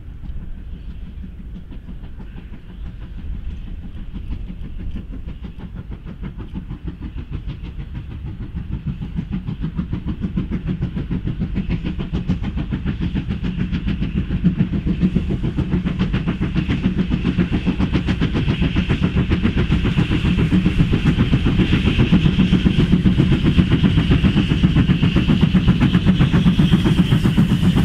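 Steam-hauled train approaching on the line, its rumble growing steadily louder throughout.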